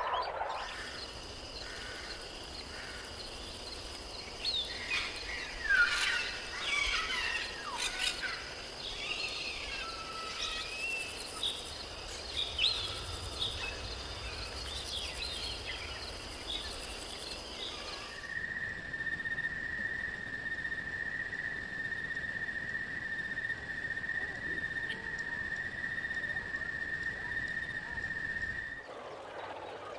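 Forest ambience: a steady high drone of insects with many bird chirps and calls over it. About eighteen seconds in it changes abruptly to a single steady insect whine with only a few faint calls.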